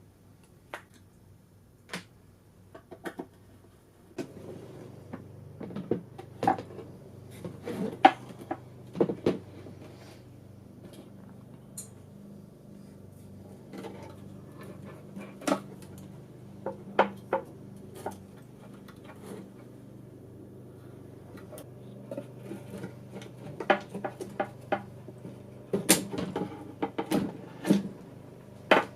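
Scattered clicks, knocks and clatters of screws, tools and metal and wood parts being handled while a vintage tube tester is taken apart, over a low steady hum that comes in about four seconds in.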